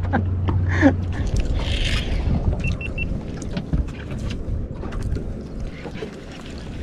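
Wind and water noise aboard a small fishing boat, with a steady low hum that stops about a second in and scattered small clicks of rod-and-reel handling. Three short high beeps sound just before the third second.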